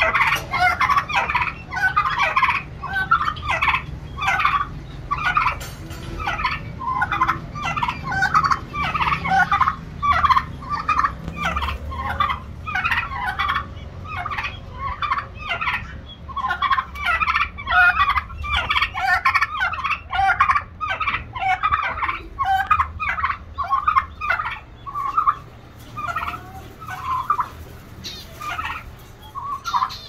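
Domestic turkeys gobbling over and over, one rattling call after another with barely a pause.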